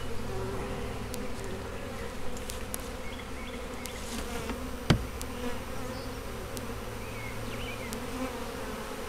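Italian hybrid honey bees buzzing steadily around an opened hive, with a single sharp crack about five seconds in as a hive tool pries the hive cover loose.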